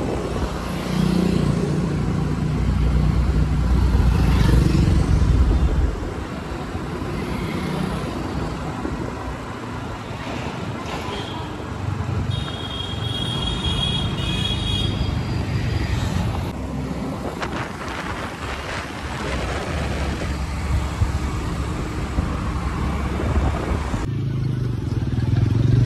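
Motor scooter ride: wind buffeting the microphone over the scooter's engine and passing road traffic, the rumble heaviest in the first six seconds. A high-pitched beeping tone sounds for a couple of seconds midway.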